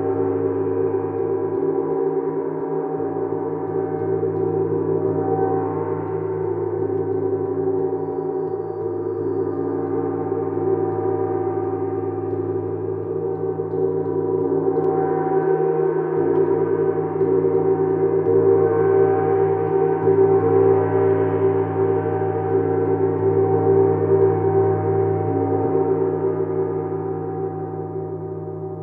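Gong sounding in a continuous sustained wash of many overlapping ringing tones, with a slow pulsing in the low notes. It swells louder past the middle and eases off near the end.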